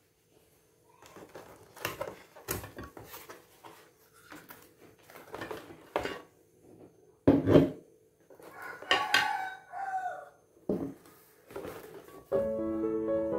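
Cardboard rustling and the clinks and knocks of glass jars with wooden lids being lifted out of their box and set down on a wooden tabletop, the loudest knock about seven seconds in. A pitched call that falls in pitch sounds about nine seconds in, and background music starts near the end.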